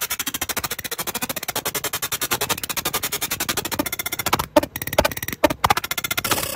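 Laser engraver marking the inside of a metal ring, giving a rapid, even ticking at about a dozen ticks a second, with a few brief breaks near the end.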